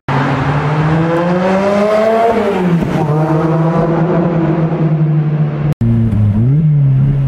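2007 Lotus Exige S's supercharged four-cylinder engine with a loud exhaust, accelerating past the roadside. The pitch climbs for about two seconds, falls back and then holds steady as the car drives away. Near the end the sound cuts to the engine running at lower revs, heard from inside the roofless cabin.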